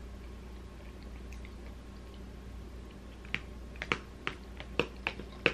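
Eating sounds: a fork and mouth at work over seafood in plastic takeout trays, giving a run of sharp clicks and taps from about three seconds in, over a faint steady hum.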